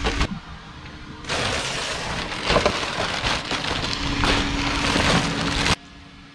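Thin plastic shopping bag of trash rustling and crinkling as it is crammed into a metal garbage bin, stopping abruptly near the end.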